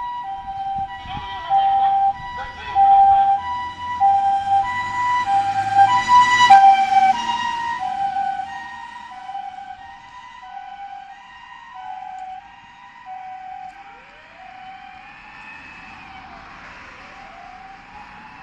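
Japanese ambulance two-tone hi-lo siren, alternating steadily between a higher and a lower note. It grows louder with engine noise as the ambulance passes about six seconds in, then fades as it drives away. Near the end a fainter siren rising and falling in a wail joins it.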